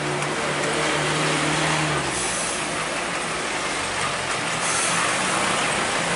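Road traffic going by: a small pickup and a Mercedes-Benz 1417 heavy truck driving past, with engine hum and tyre noise. A steady low engine drone fades about two seconds in, leaving an even rush of road noise. Two brief high hisses come about two and five seconds in.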